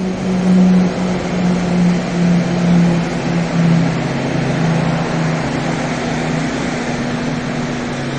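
A steady mechanical drone with a low hum, loud and unbroken, its hum swelling and fading unevenly in the first few seconds before settling.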